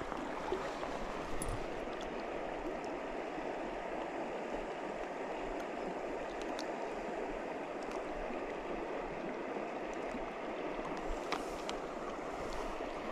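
Shallow river water running steadily over stones and around the wading angler's legs, with a few faint clicks.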